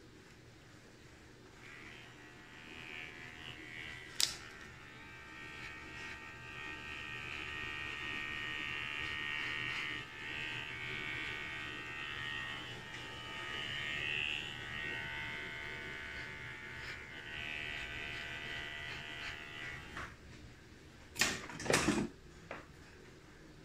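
Electric hair clippers running with a steady buzz, starting about two seconds in and stopping near the end. A few sharp clicks follow.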